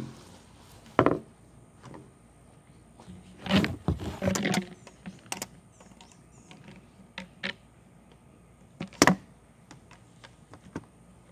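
Corrugated plastic RV sewer hoses and their plastic fittings being handled and set down on a table: scattered knocks and clacks, with a cluster of bumps about four seconds in and the loudest sharp knock about nine seconds in.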